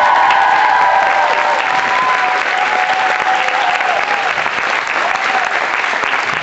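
Audience applauding, with high cheering voices held over the clapping for the first few seconds, fading out by about five seconds in.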